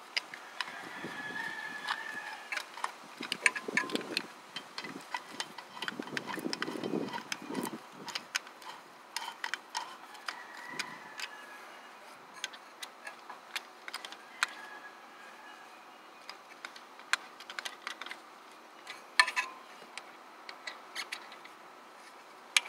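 Irregular metallic clicks and clinks of hand tools working the bolts of an LS engine mount, with short runs of ratchet-like ticking and some handling rustle in the first several seconds.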